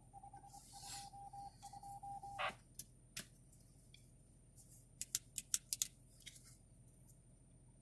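Faint steady radio tone, one beep-like pitch with brief dropouts, cutting off with a click about two and a half seconds in; after that, a few scattered sharp clicks from the radio.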